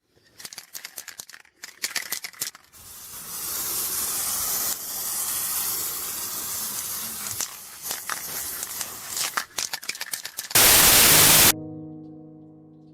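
Crackling and rustling noise, then a loud one-second burst of static, after which soft piano music begins.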